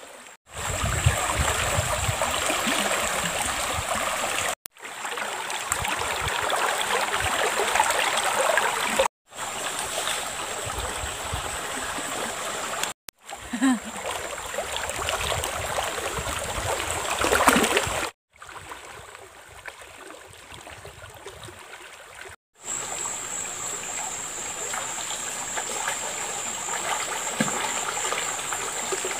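Shallow river water flowing and splashing around a person wading and bathing in it. The sound cuts off abruptly every four or five seconds between takes, and one stretch in the second half is quieter.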